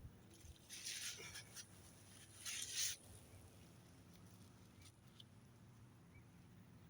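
Two short rustling noises, about a second in and again just before three seconds, over a faint quiet background.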